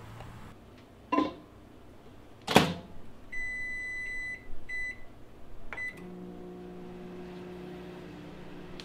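Galanz retro countertop microwave oven: a knock, then the door shut with a sharp clunk, a run of electronic keypad beeps and a click. About six seconds in the oven starts and runs with a steady hum.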